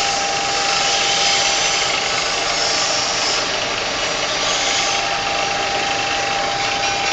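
Plastic cup ring-cutting machine running steadily: a motor-driven whir with a constant whine over a broad hiss.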